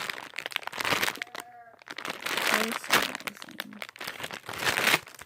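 Plastic packaging of a squishy toy crinkling in a series of rustles as it is squeezed and handled.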